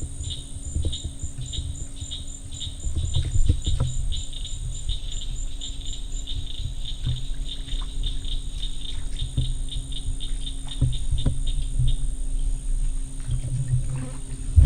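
Night insects, crickets or katydids, chirping in an even pulse of about four chirps a second over a steady high drone, with a low rumble underneath and a single sharp tap at the end.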